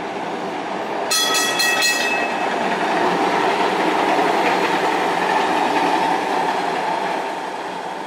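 Heritage streetcar passing close by: its warning bell rings in about three quick strokes about a second in, over the car's running noise on the rails, which swells as it goes by and then fades as it moves off.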